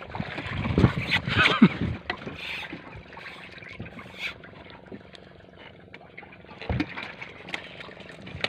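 Men's voices for about the first two seconds, then a quieter steady background of boat and water noise with a few light knocks.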